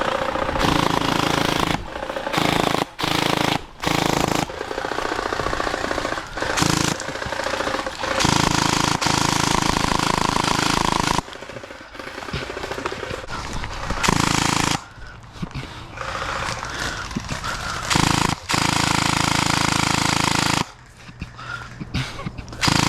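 Gel blasters firing full-auto, a rapid mechanical rattle in repeated bursts that start and stop abruptly, the longest lasting about three seconds.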